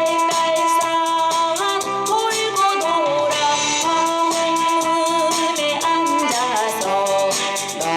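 Trot song playing: a held, stepping melody line over a steady beat.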